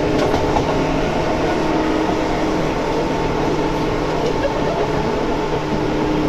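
Seibu 2000 series electric train running at steady speed, recorded from inside the car: loud motor and gear whine holding a steady pitch over the continuous rumble of wheels on rail.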